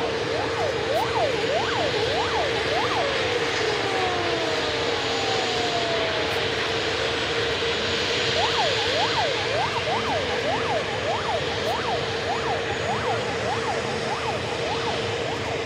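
Steady aircraft engine noise with a whine held at one pitch and a few slow falling glides. Over it come rapid up-and-down sweeps like a yelping siren, a couple each second, for a few seconds at the start and again from about eight seconds in.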